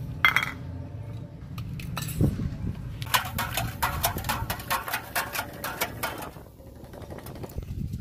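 A steel spoon stirring sugar into water in a stainless-steel jug, clinking rapidly against the jug's side for about three seconds. A single ringing metal clink comes just after the start.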